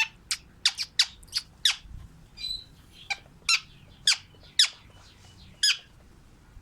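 Pet lovebirds giving a run of shrill chirps, about a dozen quick notes that each fall sharply in pitch, irregularly spaced, with a softer chattering call about two and a half seconds in.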